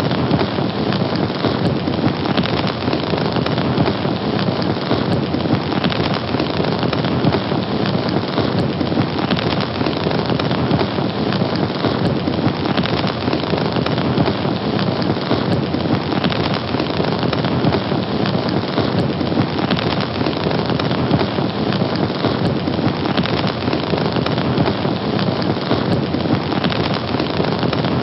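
Fire burning, a steady, dense noise at an even level.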